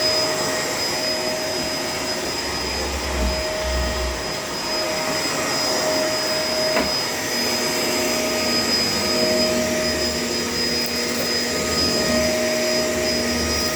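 Shark LA702 vacuum cleaner running steadily while vacuuming a floor, its motor giving a constant high whine over the suction noise.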